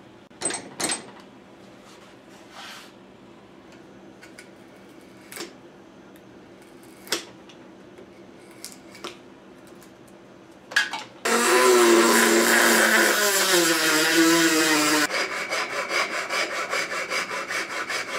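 Woodworking on a wooden rifle stock. For the first ten seconds there are scattered knocks and taps. About eleven seconds in, a power tool runs loud for about four seconds, its pitch sagging as it cuts. It gives way to quick, even rasping strokes on the wood.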